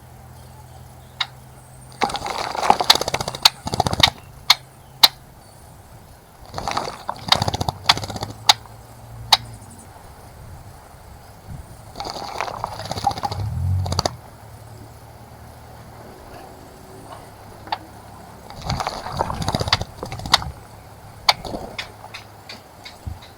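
Small birds splashing in a bird bath in four bursts of about two seconds each, with sharp single ticks of water drops between them. A faint low hum runs underneath.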